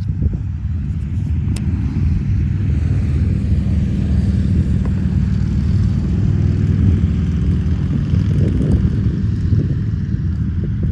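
Wind buffeting the microphone: a loud, steady low rumble that swells a little in the middle.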